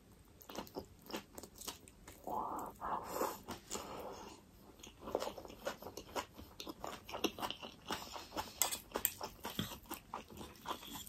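Close-miked chewing of a mouthful of spicy ramen noodles, a run of small wet smacks and clicks from the mouth.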